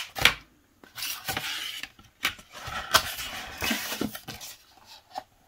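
Plastic Blu-ray case being handled and slid into its cardboard slipcover: a few sharp clicks of the plastic, and dry scraping of plastic against cardboard.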